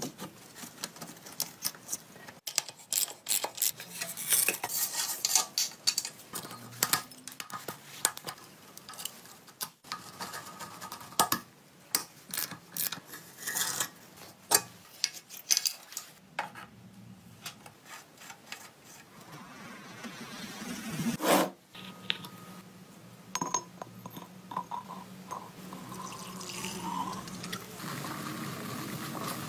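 Small metal parts clinking and clattering as they are handled, in many sharp, irregular knocks. Near the end comes a steady fizzing of liquid foaming in a glass jar.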